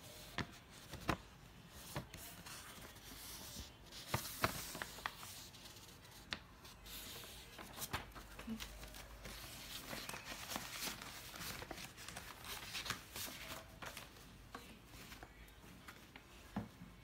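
Sheets of paper and paper envelopes rustling and being handled, with scattered light taps and clicks.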